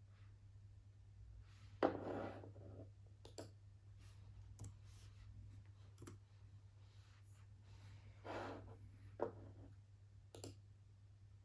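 Quiet desk-work sounds: scattered sharp clicks and taps, some followed by a short scratchy stroke, over a steady low hum. The loudest tap comes about two seconds in, and there is another strong one shortly after nine seconds.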